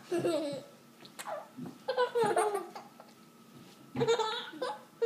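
Toddlers giggling and laughing in several short bursts.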